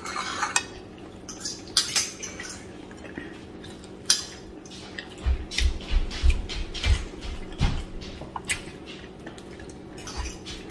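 Light clicks and clinks of plates and cutlery on a stone tabletop during a meal, scattered irregularly, with a short run of soft low thumps about halfway through.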